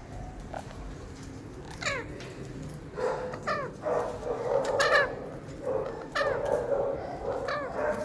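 An animal giving short, falling calls again and again, about one every second and a half, each a quick downward slide.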